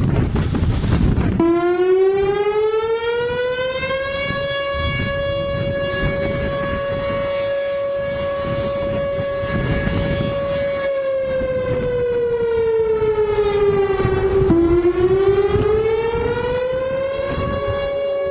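Whelen Vortex R4 electronic outdoor warning siren sounding: about a second and a half in its tone rises and then holds steady for several seconds. It slides down, drops abruptly and rises again to the same steady pitch. Wind buffets the microphone at the start.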